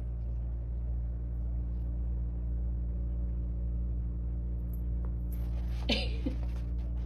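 A steady low hum made of several even tones, held without change. About six seconds in, a short sliding pitched sound rises over it.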